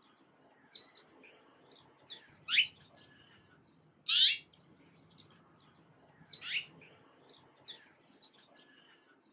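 Small birds chirping: scattered short chirps, with three louder calls that sweep upward in pitch, about two seconds apart.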